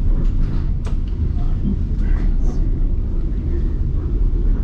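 Steady low rumble of a passenger train car in motion, heard from on board, with a sharp click about a second in and faint voices in the background.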